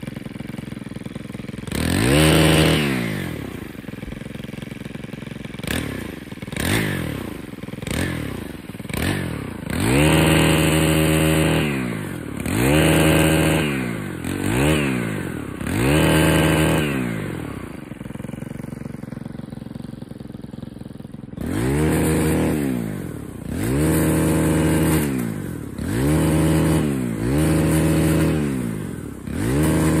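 Small gas engine of a handheld pole saw, revved up and let fall back to idle over and over, about every one and a half to two seconds, with a few seconds of steady idle in the middle.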